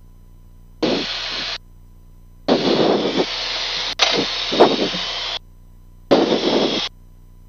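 Aircraft VHF radio heard through the intercom audio feed: four short bursts of hissy, static-laden transmission, each switching on and off abruptly, with no clear words. Between the bursts a faint steady hum and thin tone remain.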